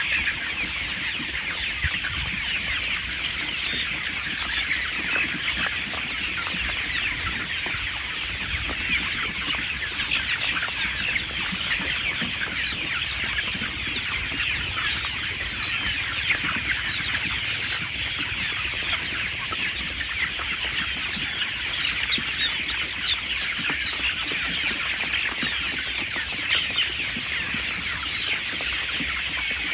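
A large flock of young chickens, about five weeks old, cheeping and peeping continuously, with many short high calls overlapping into a dense chorus.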